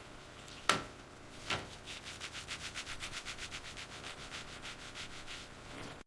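Faint rapid rubbing, about six even strokes a second, after two soft single swishes.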